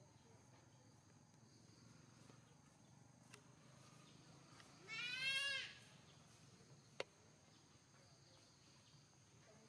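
A single short bleating cry from a young macaque, rising slightly in pitch, about five seconds in. A faint sharp click follows a couple of seconds later.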